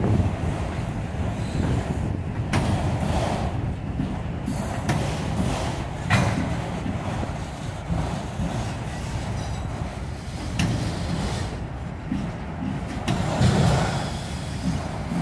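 Freight train's autorack cars rolling past: a steady low rumble of steel wheels on rail, with a few sharp clicks along the way.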